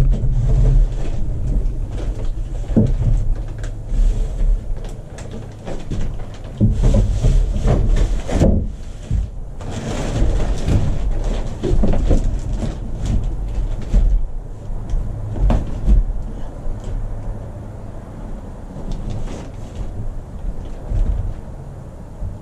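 Irregular knocks and scrapes of 2x4 lumber as a screwed-together rafter pattern is lifted and held against the roof framing for a test fit, with footsteps on a plywood floor and a steady low rumble underneath.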